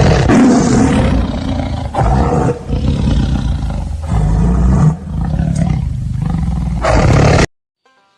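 A large animal roaring, several deep roars in a row, the recording cutting off abruptly near the end.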